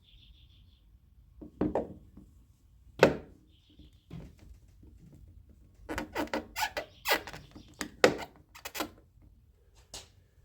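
Hand tools and metal door parts clicking and knocking while a door handle and lock are being fitted inside a car door. A few separate knocks come first, then a quick run of clicks and clunks over a few seconds.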